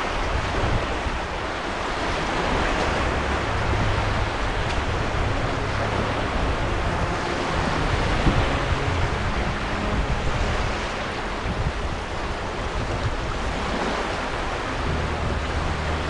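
Steady sound of ocean surf: a continuous wash of waves on a beach.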